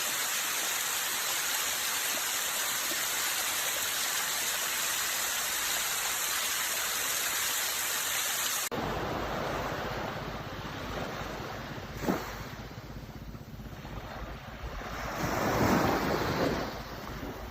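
Steady, even rushing of water, like a waterfall, which cuts off abruptly about nine seconds in. It gives way to waves washing in and out, with a sharp splash about twelve seconds in and a wave surging in loudest near the end.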